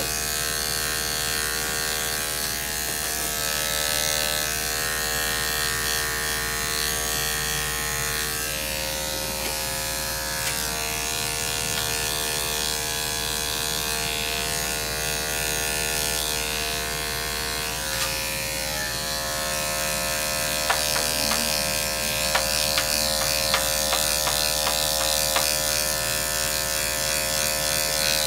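Electric dog grooming clippers running steadily as they clip a curly, matted coat, with a few short clicks about three quarters of the way through.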